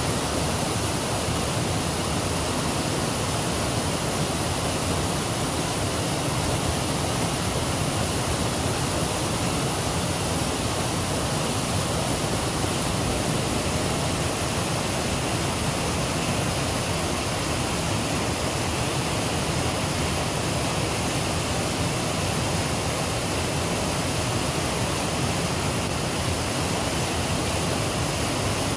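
Steady rush of flowing creek water, unchanging throughout.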